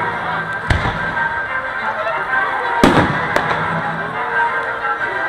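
Fireworks bursting: a sharp bang under a second in and a louder one near three seconds in, with a smaller pop just after, over continuous background sound.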